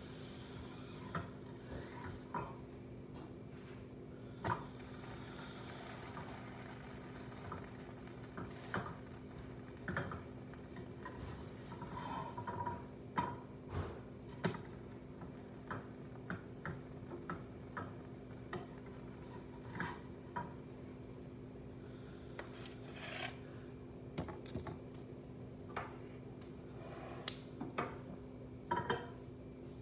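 Spatula scraping and tapping in a frying pan, with scattered clinks of cookware and a plate, over a steady low hum.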